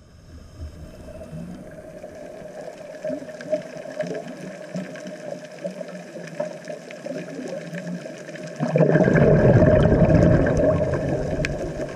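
Underwater sound picked up through a camera's waterproof housing: a steady low hiss with faint scattered crackling clicks. Nearly nine seconds in, a scuba diver's exhaled bubbles from the regulator gurgle in a loud rush for about two seconds, then fade.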